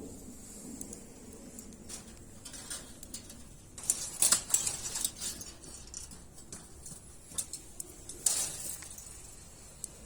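Wood fire crackling with scattered sharp pops, and two denser flurries of crackles about four seconds in and again about eight seconds in.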